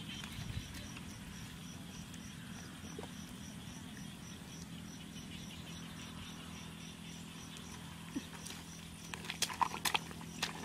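An insect calling in high, even pulses, about four a second, over a low steady drone. Near the end come a few sharp splashes and squelches of feet and hands in wet mud.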